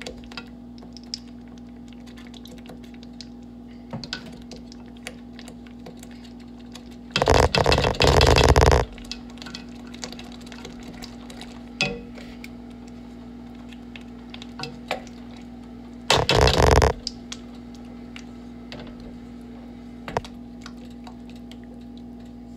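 Seasoning shaken from a plastic shaker-top container into a measuring spoon. There are two loud bursts of shaking noise: one about a second and a half long some seven seconds in, and a shorter one about sixteen seconds in. Scattered light clicks of the plastic spoon and pan fall between them, over a steady low hum.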